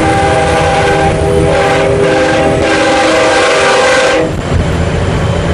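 Semi truck's air horn blowing a multi-note, train-horn-like blast in a few long pulls, stopping about four seconds in, over the steady rumble of the truck's engine and road noise.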